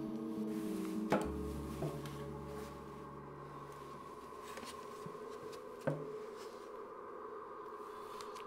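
A wooden chair knocking and creaking as someone in socks steps up onto it: a sharp knock about a second in, a softer one just after, and another a few seconds later. Under it, a low held musical drone fades away by about halfway.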